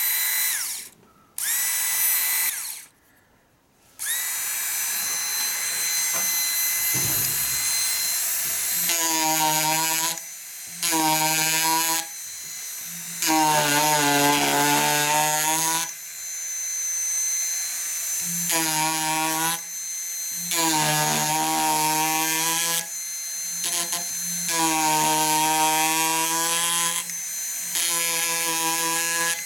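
Proxxon MSG electric wood-carving tool switched on and off in short bursts, its motor spinning up with a rising whine, then running steadily. From about nine seconds in, its reciprocating chisel cuts into a wooden beam in repeated stretches of one to three seconds, a low buzzing chatter under load between lighter running.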